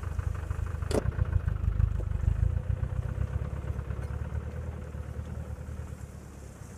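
A small four-wheel-drive vehicle's engine running as it pulls away, fading with distance. There is a sharp knock about a second in.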